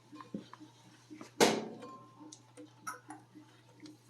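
Light clicks and taps from handling a borescope cable in a corrugated dishwasher drain hose, with one louder knock about a second and a half in, over a faint steady hum.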